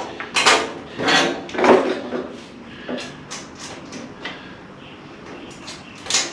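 Loose bolts and metal tools being handled and shifted about on a wooden workbench. There are a few loud scraping, clattering strokes in the first two seconds, then lighter clicks and knocks, and one sharper knock near the end.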